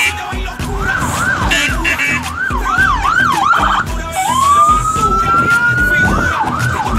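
Electronic siren sounding: a quick rising-and-falling warble about twice a second, then one long slow rising wail about four seconds in, then the quick warble again near the end.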